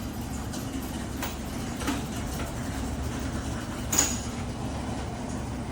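Vehicle running with a steady low hum, with a few light knocks, the sharpest about four seconds in.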